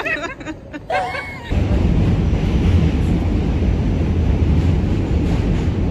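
New York City subway car running, heard from inside the car: a loud, steady low noise that starts abruptly about one and a half seconds in.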